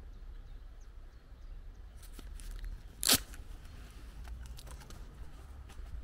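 Footsteps crunching on a dirt lane over a low rumble of wind, with one sharp, loud snap about three seconds in.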